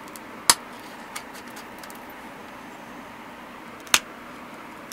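Two sharp snaps about three and a half seconds apart, the first about half a second in and the second near the end, over a faint steady hiss: flakes popping off the edge of an obsidian point under a hand-held pressure flaker.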